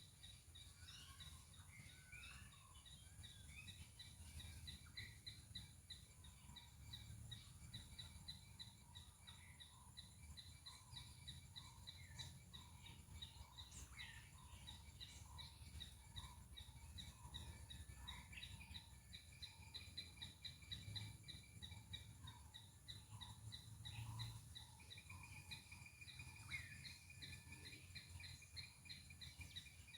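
Faint chirping of palm squirrels: a rapid run of short, high chips that keeps going, with other short chirps repeating about once a second. Behind it sits a steady thin high whine like insects.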